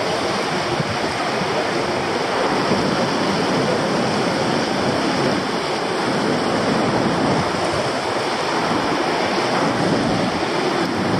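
Lower Yosemite Fall's water rushing, a loud, steady, unbroken noise.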